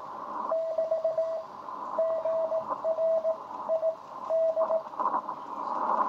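Morse code (CW) from another amateur station received on a shortwave transceiver: a single steady mid-pitched tone keyed in dots and dashes over a hiss of band noise, carrying the signal report and grid locator of the contact. The keying stops about five seconds in, leaving the hiss growing louder.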